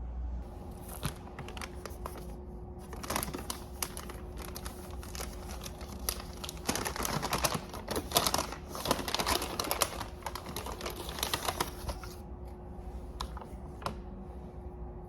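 Typing on a computer keyboard: quick runs of key clicks, densest through the middle and thinning out near the end.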